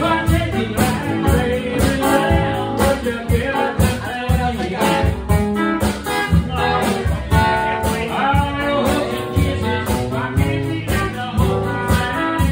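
Live blues band playing: guitars with a voice singing over a steady beat.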